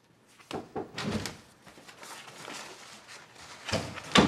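An office door opening and being shut as someone walks in. There are a few short knocks about half a second to a second in, and the loudest sound is the door closing with a thud near the end.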